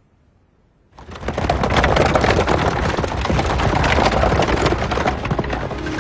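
Horse-drawn carriage on the move, its wheels and the horses' hooves making a dense, steady clatter that starts after about a second of quiet.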